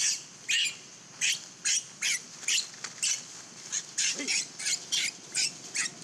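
Baby macaque squealing over and over in short, high-pitched cries, about two a second, as its mother grips and pulls it.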